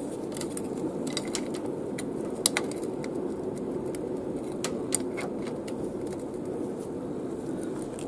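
Light metallic clicks and clinks of a new 428 motorcycle roller chain and its connecting link being handled and fitted together by hand, the clicks thickest in the first five seconds, over a steady low hum.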